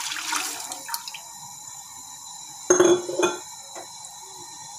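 Water poured from a jug into an aluminium pan, splashing and trailing off about a second in. Then two short knocks, a little under three seconds in and half a second later, with the first the loudest.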